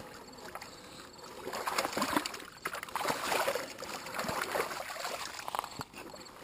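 Shallow water splashing and trickling as a wire-mesh fish basket holding caught trout is handled at the water's edge, with small irregular clicks and knocks of the basket against the rocks.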